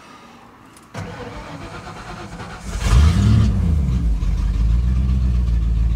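A 1995 Ford F-150 4x4 engine being started. The starter cranks for about two seconds, the engine catches about three seconds in with a brief rev that rises and falls, then settles into a steady idle. The truck has a broken exhaust.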